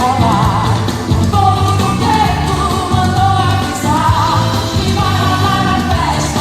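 A song with a sung vocal melody over a steady, repeating bass beat.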